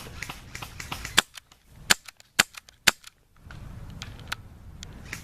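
Green gas airsoft pistol firing about five sharp, irregularly spaced shots, most between one and three seconds in, emptying its magazine.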